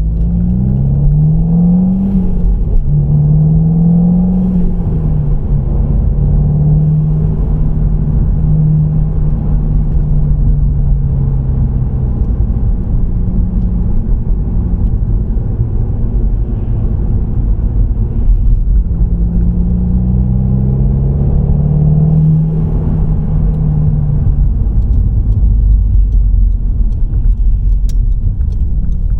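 Seat Leon Cupra Mk2's turbocharged 2.0 TFSI four-cylinder engine under way, with steady road rumble: the revs climb twice in the first five seconds, each time dropping at a gear change, then hold at a steady cruise and climb again about twenty seconds in.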